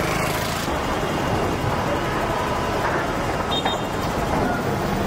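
Steady street noise of road traffic, with faint voices in the background.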